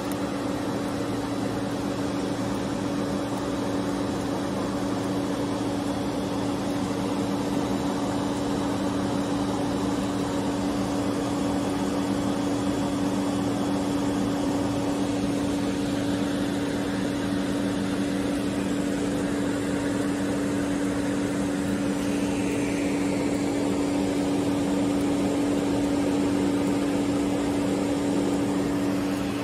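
Steady hum of a powered-up CNC lathe's electrical cabinet and cooling fans: a few steady low tones under an even fan-like rush.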